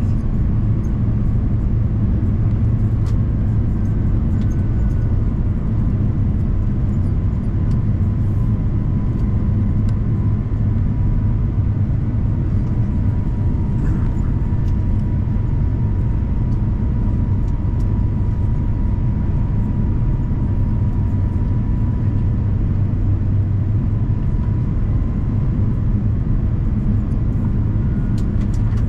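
Cabin noise inside an Airbus A350-900 on approach: a steady low rumble of airflow and its Rolls-Royce Trent XWB engines, with a faint thin whine holding near one pitch.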